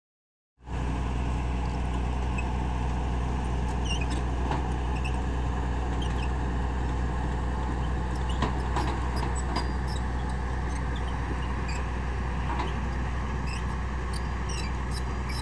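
Diesel engine of a Tata Hitachi crawler excavator running with a steady low hum as the machine works its boom and bucket; the sound starts abruptly about half a second in. Faint short high chirps and ticks sound over it.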